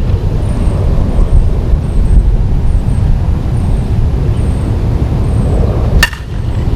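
A Dudley Lightning Bobby Nifong one-piece senior softball bat hitting a pitched softball: one sharp ringing crack about six seconds in. Under it, a steady low rumble of wind on the microphone.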